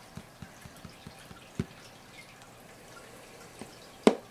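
Small sharp clicks and taps on a clear plastic tub: a quick run of faint ones at first, then one louder one, and one sharp loud click near the end.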